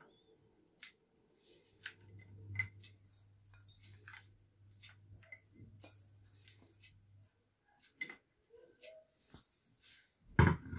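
Faint scattered clicks and light taps of kitchen handling while grated cheese is sprinkled over a lasagna in a glass baking dish, with a faint low hum for a few seconds and two louder knocks near the end.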